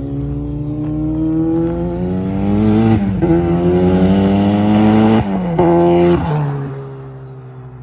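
Turbocharged Honda Civic engine accelerating hard through the gears: the pitch climbs steadily, drops sharply at a gear change about three seconds in and again about five seconds in, then eases off and fades near the end.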